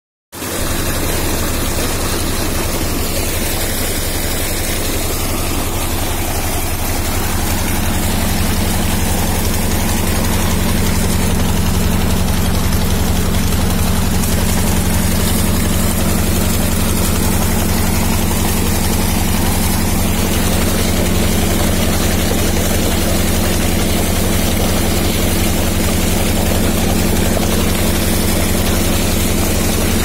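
Water gushing from an irrigation pump outlet and churning along a concrete channel, over a steady low engine-like hum from the pump. Both start just under half a second in and keep going evenly.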